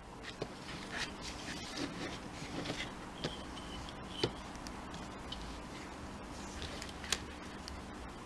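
Quiet handling noises at a craft table: a few light clicks and taps as a metal ruler and paper are shifted about, with faint scraping of the pen and paper between them.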